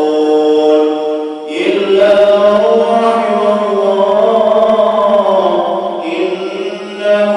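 An imam's melodious Quran recitation: one man's voice chanting long, drawn-out phrases that glide between held notes. A short break for breath comes about a second and a half in, and another just before the end.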